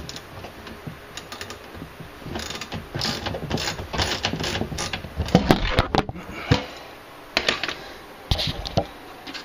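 A bolt and nut being tightened to fasten a large rubber speaker-cabinet foot to a steel PC case: irregular metallic clicking, clatter and scraping of the hardware and tool against the case, busiest about halfway through.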